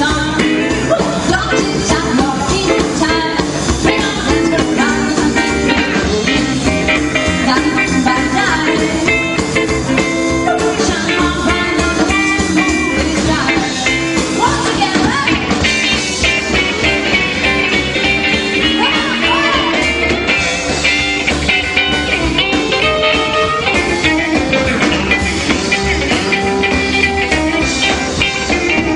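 Live rockabilly band playing an up-tempo boogie, with a running bass line under guitar and drums.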